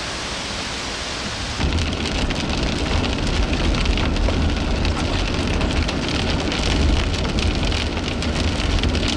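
Heavy rain falling steadily; about a second and a half in it turns louder, with a dense patter of drops striking close by over a low rumble.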